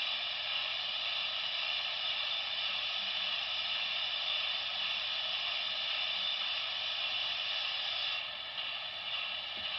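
Sound decoder of a Broadway Limited Paragon3 light Pacific model steam locomotive playing its water injector effect through the model's speaker: a steady steam hiss that eases slightly about eight seconds in.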